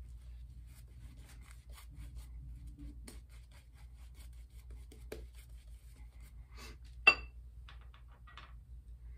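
Vie-Long horsehair shaving brush lathering soap on the face and neck: faint, repeated scratchy brushing strokes over a low steady hum. About seven seconds in comes one sharp, ringing clink, the loudest sound.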